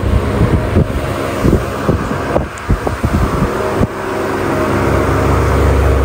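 Arno Ambience table fan running, its motor humming steadily with a rush of air from the spinning blades. There are several knocks in the first four seconds, then from about four seconds the air rush grows louder and steadier. The fan is spinning freely on its newly lubricated motor after it had been too weak to turn.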